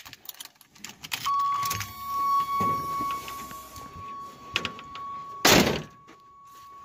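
A car's warning tone comes on just after the ignition key is switched on, a steady single high note, with keys jangling at the start. A car door slams shut about five and a half seconds in, and the tone carries on fainter after it.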